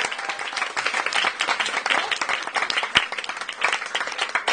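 Audience applauding, with one sharper knock about three seconds in.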